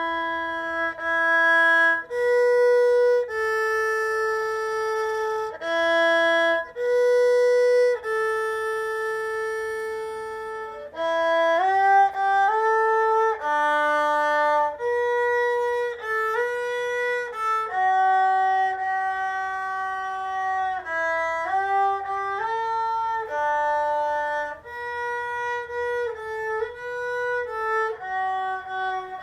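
Erhu played by a beginner: a slow single-line melody of held, bowed notes, sliding between pitches in places.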